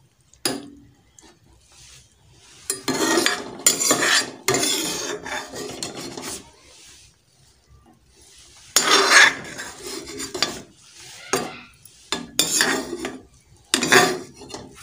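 Steel ladle scraping and clinking against a steel cooking pot in several spells of strokes, the longest about three seconds in and again about nine seconds in, as boiled instant noodles and vegetables are scooped out.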